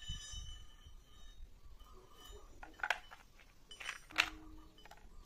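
A few sharp metallic clinks, the loudest about four seconds in and followed by a brief ringing tone, as metal pieces are handled and knock together in a machine shop.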